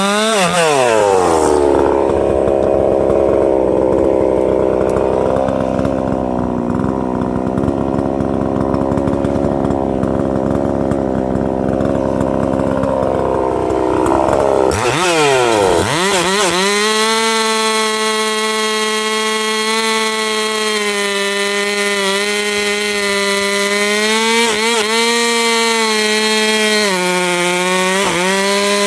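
Husqvarna 262XP 60cc two-stroke chainsaw at full throttle, cutting big ash wood. Just after the start its pitch drops sharply as it bites into the cut, and it pulls under load for about 13 seconds. It then rises back to a steady high scream at full revs, dipping briefly twice near the end.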